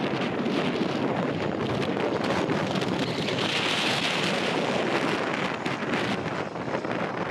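Wind buffeting the microphone over the sound of a twin-turboprop ATR 72-212A on final approach. A higher hiss from the aircraft swells briefly in the middle.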